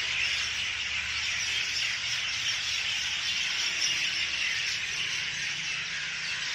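Many small birds chirping and chattering at once in a dense, steady chorus.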